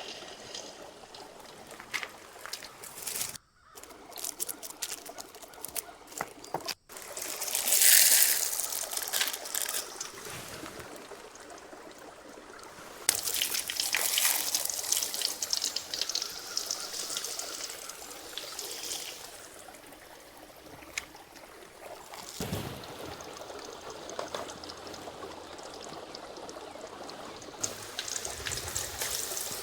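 Water trickling and pouring, louder about eight seconds in and again from about thirteen seconds, broken by two brief cuts.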